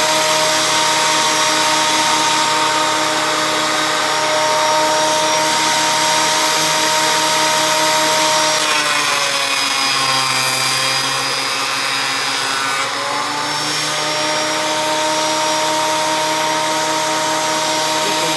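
Ryobi 10-inch thickness planer running with a steady motor whine. About eight seconds in, the pitch sags for several seconds as the motor slows under load from a cut, then climbs back to full speed.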